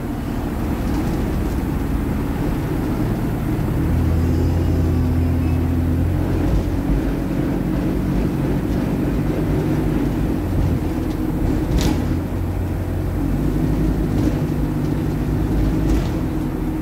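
Diesel engine of a Metroline Alexander Dennis Enviro400 double-decker bus running steadily as it drives, its drone strengthening for a few seconds twice. Two sharp knocks of body rattle come about twelve seconds in and near the end, on a bus its recordist calls an absolute rattlebox.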